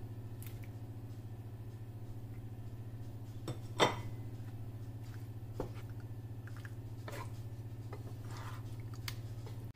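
Wooden spatula stirring penne and mushrooms through a thick sauce in a frying pan, with a few short knocks against the pan, the sharpest about four seconds in. A steady low electrical hum runs underneath.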